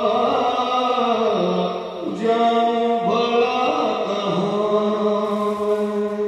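Music of slow vocal chanting: long held sung notes that shift pitch every second or two, with a short break about two seconds in.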